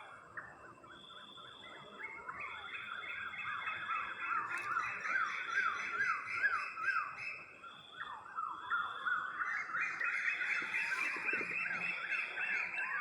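Night chorus of calling animals: many overlapping, rapidly repeated rising chirps, with a high pulsing trill coming in bursts about once a second above them. The chorus swells about two seconds in and again near the end.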